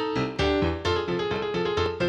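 Background music: a keyboard or piano melody with a steady, regular beat of notes.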